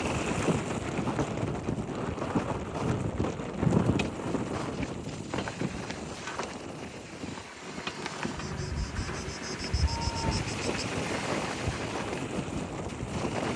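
Nissan Juke driving, with steady road and wind noise and a few sharp knocks scattered through it. The owner puts the knocking down to the brake calipers after warm-up, which the dealership calls normal.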